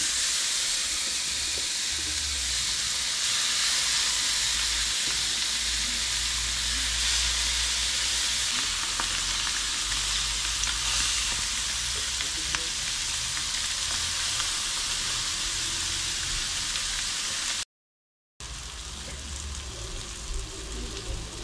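Fish fillets sizzling on a hot, lightly buttered electric grill plate as more pieces are laid down. The steady sizzle drops out for a moment near the end and comes back a little quieter.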